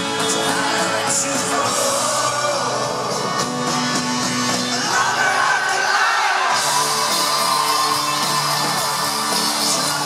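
Live folk-rock band playing loudly, with singing over keyboard, fiddle and drums, and crowd shouts and whoops mixed in; the sound grows brighter and fuller about two-thirds of the way through.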